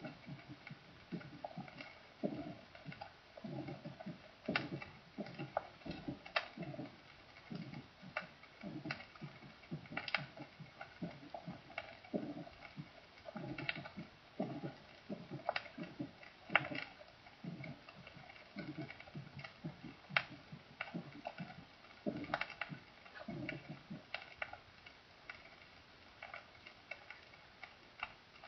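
Recorded heart sounds: low heartbeat thuds repeating at a little under two a second, with scattered sharp clicks over them. The thuds stop about 24 seconds in, leaving only the clicks.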